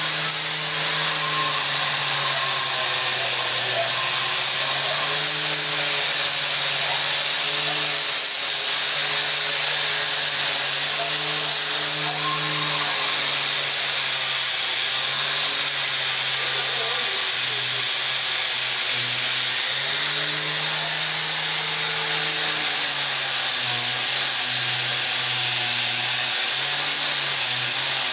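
Small electric power tool running continuously with a high whine, its pitch drifting slightly up and down as the load changes.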